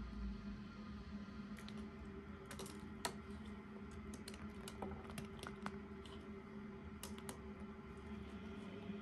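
Pomegranate seeds sprinkled by hand onto a foil-lined tray of baked fish, landing as light, irregular clicks and ticks on the aluminium foil, over a steady low hum.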